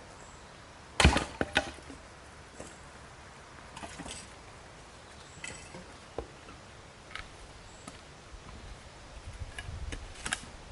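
A series of knocks and clicks: a loud clatter of several knocks about a second in, then lighter single taps every second or so, and low handling rumble with a couple more clicks near the end.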